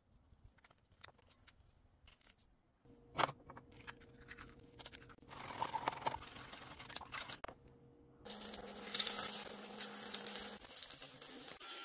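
Kitchen food-preparation noises: scattered clicks and knocks, then denser scraping and crinkling from about eight seconds in, as of ingredients being cut and handled.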